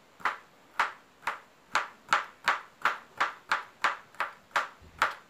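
Kitchen knife chopping bitter gourd (ampalaya) into small pieces on a plastic cutting board: a steady run of sharp taps, about two and a half a second.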